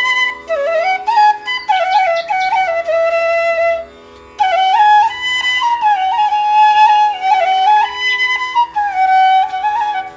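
Background music: a flute playing a slow melody that slides between notes, over a steady drone. The melody breaks off briefly about four seconds in.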